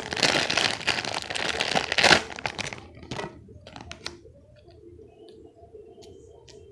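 Plastic packaging crinkling and tearing as it is pulled open for about two seconds, then a few light clicks and quieter rustling as it is handled.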